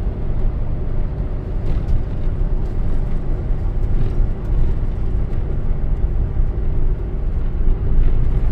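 Steady low rumble of road and engine noise inside the cab of a vehicle driving along a motorway.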